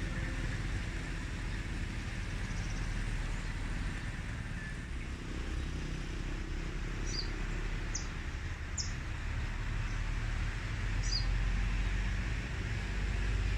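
Steady low rumble of distant road traffic, with a few short, high bird chirps scattered through the second half.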